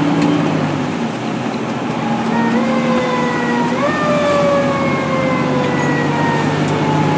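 Fire engine siren starting a little over two seconds in: its pitch rises sharply, falls slowly, rises again about a second later, then slides slowly down through the rest. Under it, the truck's engine runs steadily.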